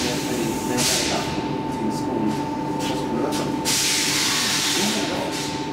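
Stockholm Metro C14 train moving slowly alongside a platform, heard from inside the car: steady running noise with a constant electrical whine. Compressed air hisses twice, briefly about a second in and then longer past the middle.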